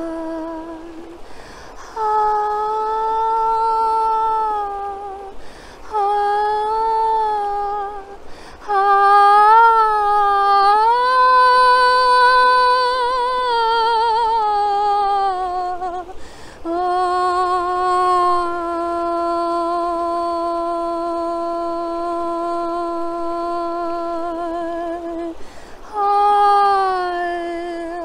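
A woman's voice singing wordless sustained tones, held notes that glide between pitches and sometimes waver with vibrato, in phrases broken by short breaths. The longest note holds steady for about eight seconds in the second half.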